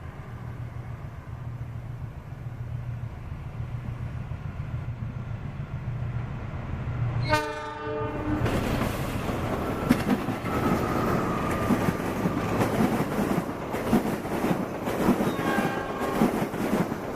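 Train approaching with a steady engine hum that grows louder, then one short horn blast about seven seconds in, followed by the loud rumble and wheel clatter of the train passing close by. A second, fainter horn tone sounds near the end.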